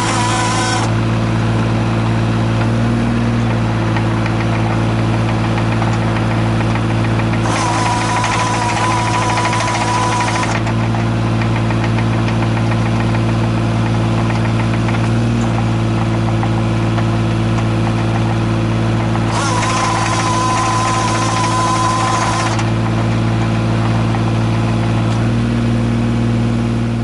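Diesel engine of a Komatsu PC15R-8 mini excavator running at a steady speed. Three times, for about three seconds each, a hissing whine joins in over the engine note.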